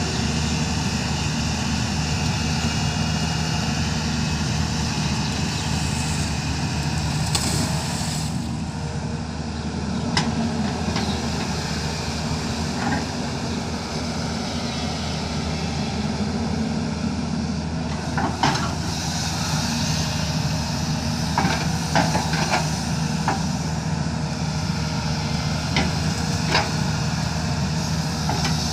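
Diesel engine of a heavy digging machine running steadily under work, with a sharp knock now and then, most of them in the second half.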